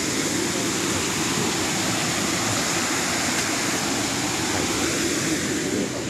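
Steady rushing of Shiraito Falls, a wide curtain of many thin streams of water pouring down a mossy rock face into a pool.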